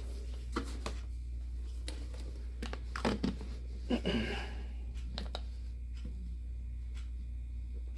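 Scattered light clicks and rustles from handling a syringe and snow globe while refilling the globe with water, most of them in the first half, over a steady low hum.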